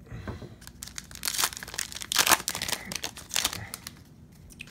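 Foil wrapper of a hockey trading-card pack being torn open and crinkled: a string of sharp crackles, loudest between about one and three and a half seconds in.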